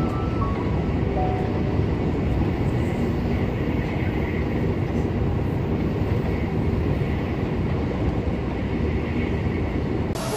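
Steady rumble of a passenger train running at speed, heard from inside the carriage.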